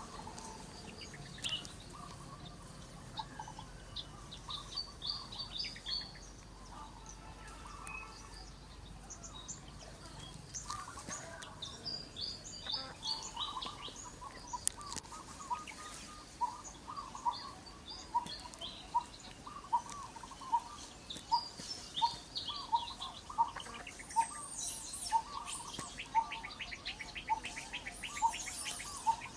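Several birds chirping and calling, with many short, high chirps and a short lower note that repeats about one and a half times a second through the second half.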